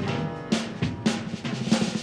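Jazz background music: the saxophone line dies away and a drum kit comes in about half a second in, with snare and bass drum hits.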